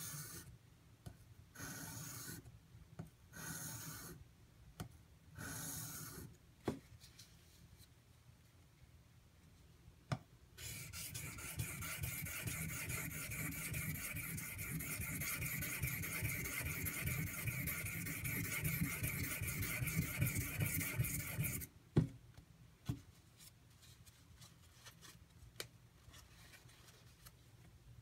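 Steel knife blade scraping across a whetstone: four short separate strokes, then about eleven seconds of continuous scraping. A few light clicks come before and after the long run.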